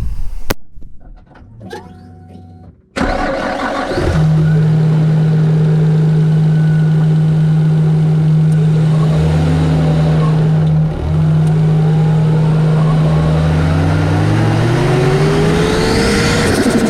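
Turbocharged car engine starting about three seconds in and then running steadily, heard up close from the engine bay beside its 3-inch aluminium turbo intake pipe. Engine speed rises toward the end.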